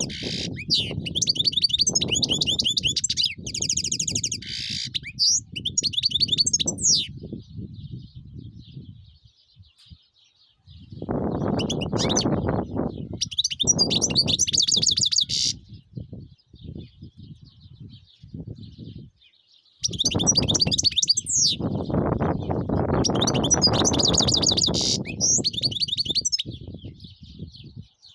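European goldfinch singing: several bursts of rapid, high twittering song a few seconds each, with pauses between them. Bursts of low rumbling noise come and go underneath.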